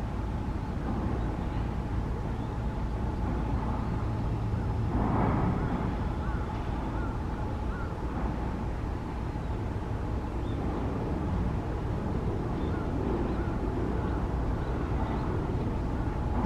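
Steady distant airliner jet engine noise: a low rumble with a thin constant whine, swelling briefly about five seconds in.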